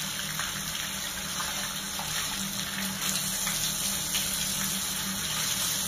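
Water running steadily from a bathroom tap onto long hair as it is rinsed under the flow.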